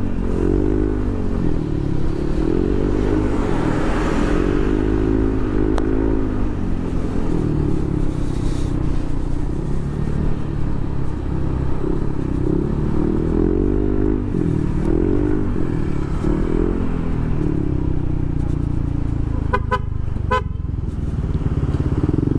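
Yamaha NMAX 2020 scooter's single-cylinder engine running while under way, its pitch rising and falling with the throttle. A horn gives a quick series of short toots near the end.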